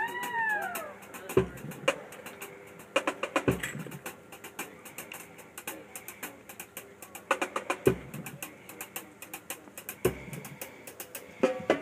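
Loose percussion between pieces at a band practice: a few deep bass-drum thumps spaced irregularly, one to four seconds apart, among many light clicks and taps. Two brief sliding pitch arcs rise and fall in the first second.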